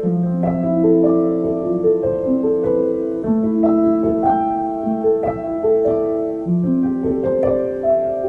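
Background piano music: a slow melody of separate held notes, a new one about every half second.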